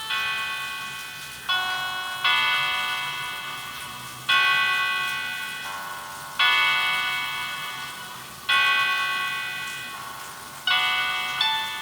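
A Nokia ringtone playing from a Samsung SGH-A157 flip phone's speaker: bell-like chords struck every second or two, each starting suddenly and fading away.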